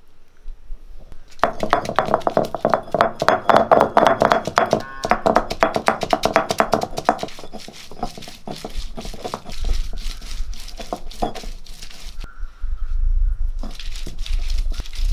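Ginger and garlic being crushed with a stone roller on a flat Kerala grinding stone (ammikallu): rapid knocks of stone on stone, several a second, starting about a second and a half in. Later the knocks are lighter and more scattered, over a low rumble, with a short pause near the end.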